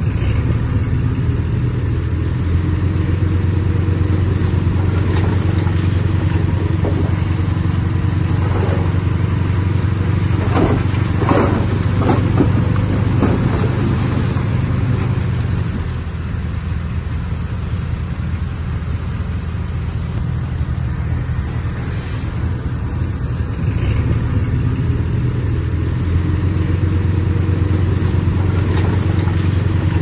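Heavy-equipment diesel engine running steadily, with a brief rattle about ten to thirteen seconds in. The engine note drops lower for several seconds past the middle, then rises again.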